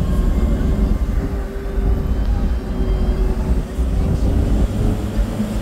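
A vehicle driving along a road, heard from on board: a steady low rumble of engine and road noise with a faint hum.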